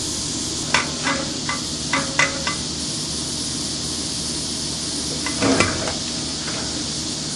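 Copper refrigerant tubing on an air-conditioner compressor being handled and worked loose after unbrazing, with a quick run of light clicks and taps in the first few seconds, over a steady hiss.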